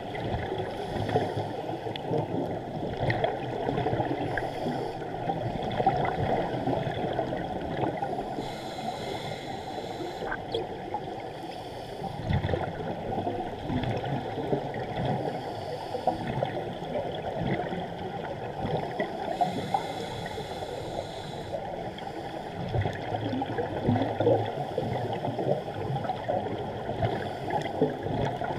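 Underwater sound through a GoPro's waterproof housing: a steady, muffled crackling and gurgling, with rushes of a scuba diver's exhaled bubbles every few seconds.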